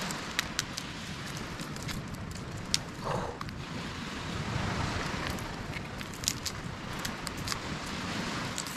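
Small beach campfire crackling, with scattered sharp irregular pops and clicks over a steady outdoor hiss, as crayfish roast on the coals.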